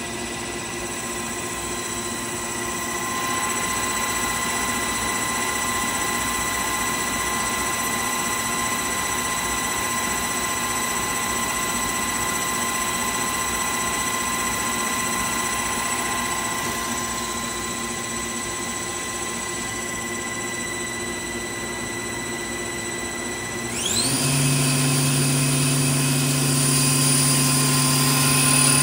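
Citizen L12 Swiss-type CNC lathe's spindles running, a steady whine made of several tones. Near the end the pitch rises quickly as a spindle speeds up, then holds higher and louder.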